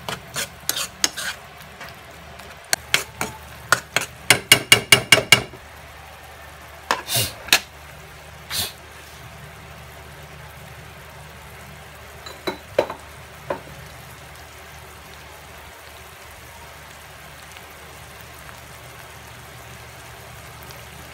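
A spoon clinking and scraping against a frying pan while sautéed crab paste is stirred, with a quick run of taps about four seconds in. After that, only a few last clinks sound over the steady sizzle of the paste cooking on the gas burner.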